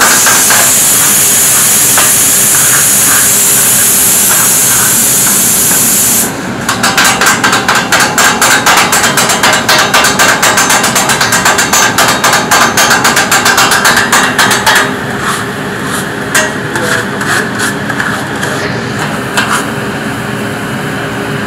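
Steel kottu blades rapidly clattering against a flat iron griddle as chicken kottu paratha is chopped, a fast, even run of metallic strikes. For the first six seconds a loud steady hiss lies over the chopping and then cuts off suddenly; the strikes are loudest in the middle and grow quieter about fifteen seconds in.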